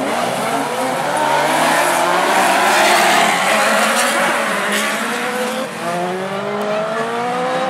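A pack of autocross super buggies racing on a dirt track, many engines revving hard at once with their pitches climbing and overlapping. The sound is loudest about three seconds in, then eases slightly as the pack pulls away.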